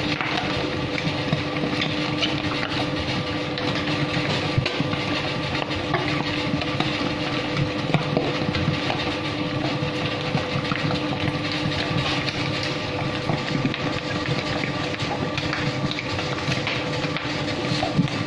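Electric dough mixer running steadily, its motor humming with a few constant tones while the hook kneads white bread dough in a steel bowl.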